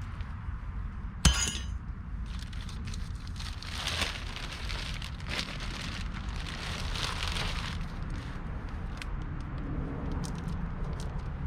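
Metal bolts and tools being handled while mounting a bracket: a sharp metallic clink about a second in, then scraping, rattling and small ticks of metal on metal, over a steady low rumble.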